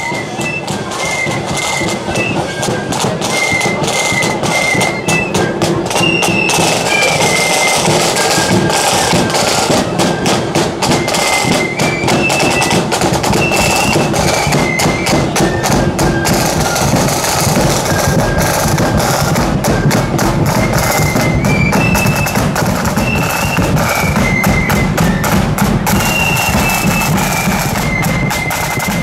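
Marching band playing a march: side drums beating rapid strokes with a bass drum, under a high-pitched melody from flutes.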